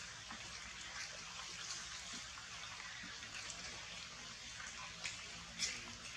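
Steady rain falling on forest foliage, a continuous hiss dotted with small drop ticks and a couple of louder drips near the end.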